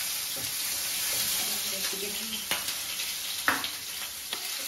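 Ginger and garlic sizzling in hot oil in a pan, stirred with a spatula; a few sharper scrapes of the spatula on the pan in the second half.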